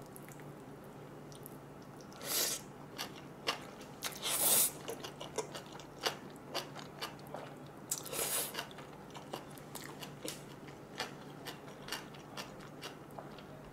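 Close-miked slurping and chewing of gan jjajangmyeon black-bean-sauce noodles: three long slurps, about two, four and a half, and eight seconds in, with wet chewing clicks and smacks between them.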